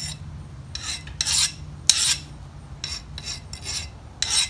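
Steel hand file scraped across the edge of a freshly quenched knife blade forged from a saw blade, in a file test: several short rasping strokes. The blade has hardened, though not fully: it is not super hard.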